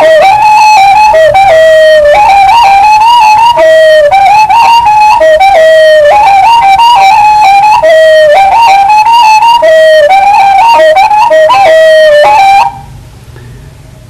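A high, flute-like wind instrument playing a melody in short stepped notes with small slides between them. It breaks off shortly before the end.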